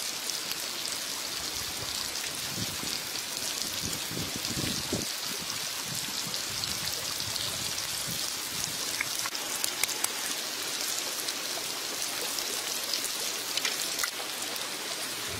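Oil sizzling steadily in a hot pan around bitter melon rings being fried, with scattered small crackles.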